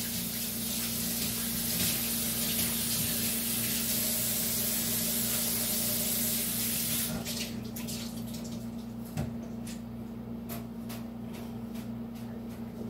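Water running steadily from a tap, a loud hiss that cuts off about seven seconds in. Faint clicks and knocks follow over a low steady hum.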